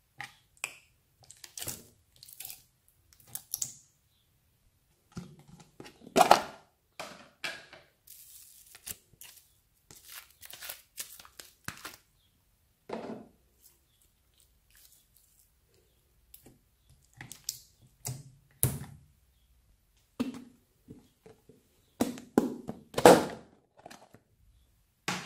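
Slime being poured and peeled out of plastic tubs into a bowl of other slime: a string of short sticky clicks and crackles with silent gaps between them, loudest about six seconds in and again near the end.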